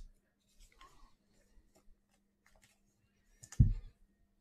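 Light rustles and small ticks of trading cards being handled and slid one by one, with a louder thump about three and a half seconds in, over a faint steady hum.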